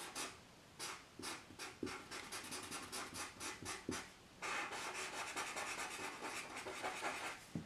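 Felt-tip Sharpie marker drawing on paper: a run of quick, short scratchy strokes, then, a little over halfway through, a steadier back-and-forth scribble as an area is filled in.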